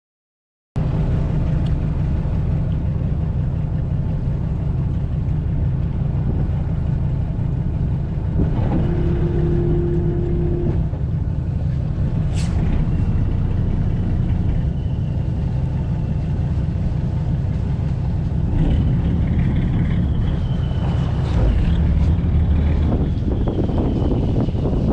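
Fishing boat's engine running steadily under way, a loud low drone. It starts abruptly just under a second in, and a short steady higher tone comes through about nine seconds in.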